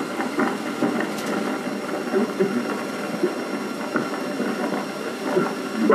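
16mm film projector running with a steady mechanical clatter, under faint bits of the film's soundtrack.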